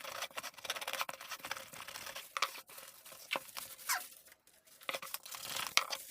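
Parcel packaging being torn and crinkled open by hand: irregular ripping, scratching and crackling, with a short pause a little past the middle.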